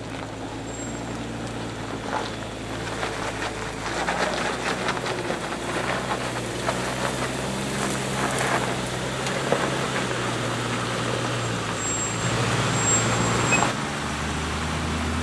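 A Ford E350 motorhome's 460 V8 running as the RV drives, its engine note shifting a couple of times, with rattles and clicks from the vehicle.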